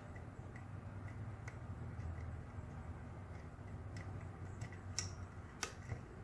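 Faint small metallic ticks and clicks of a lock pick working inside a small dimple cam lock held under tension, with a couple of sharper clicks about five seconds in, over a steady low hum.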